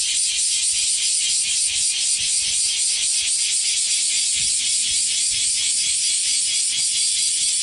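Cicadas chirring in a steady, pulsing drone of about five or six pulses a second.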